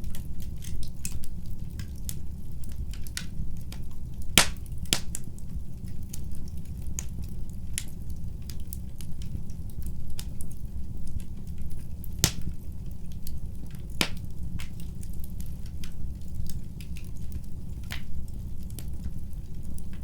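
Wood fire burning in a fireplace: frequent irregular crackles and sharp pops over a steady low rumble of the flames. The loudest pops come about four seconds in and again about twelve seconds in.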